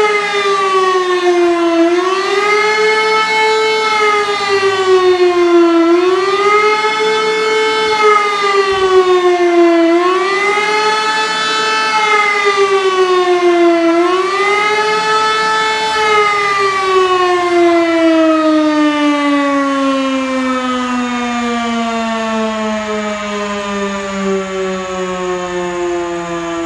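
Civil defence warning siren sounding the German 'Warnung der Bevölkerung' signal in a siren test: a loud wailing tone that rises and falls about every four seconds. About two-thirds of the way through it winds down in one long falling glide.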